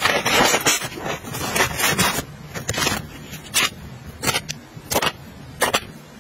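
Skincare sample sachets rustling and crinkling as they are slipped into a fabric toiletry pouch. After about two seconds this gives way to a handful of separate light clicks and taps as small plastic ampoules and a little bottle are set inside.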